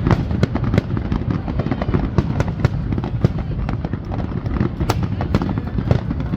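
Fireworks display: a rapid, continuous crackle of many sharp bangs over a steady low rumble.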